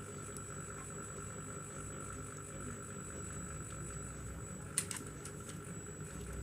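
Light clicks and rattles of a plastic laser-printer drum unit being handled and fitted together, with one sharp click about five seconds in. Under it runs a steady hum with a faint high whine.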